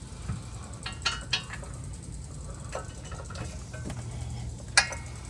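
Scattered metal clinks and knocks of a steel bumper bracket and M10 bolts being handled and fitted by hand, the sharpest click near the end, over a low steady hum.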